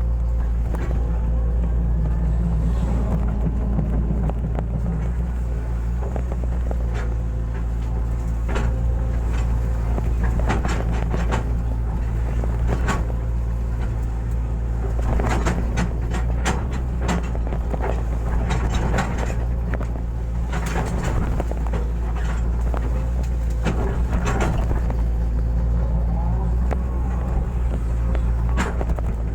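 Hitachi hydraulic excavator's diesel engine running steadily under load while digging, with scattered knocks and clatter from the bucket and arm working the soil.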